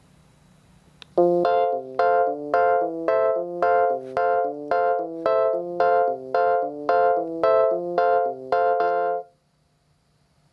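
Panasonic KX-TGD62xE cordless landline phone playing one of its built-in ringtones. It is an electronic melody of short, evenly spaced notes, about two a second, that starts about a second in and stops after about eight seconds.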